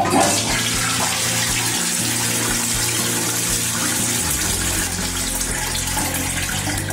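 Toilet flushing from a STIR BLITZ concealed in-wall cistern: water rushes into and through the bowl as soon as the flush button is pressed. This is a test flush of the freshly repaired cistern.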